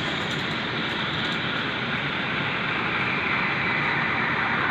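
Espresso machine steam wand hissing steadily in a small pitcher of milk as it froths and heats the milk, growing slightly louder and brighter toward the end.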